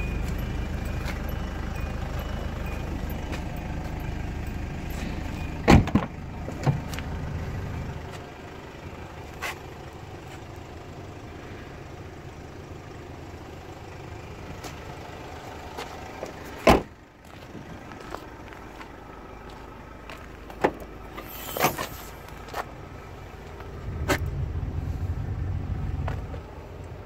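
Scattered knocks and clunks from a car's doors and interior fittings being handled, the loudest a little past halfway, over a low rumble that drops away about a third of the way in and comes back near the end.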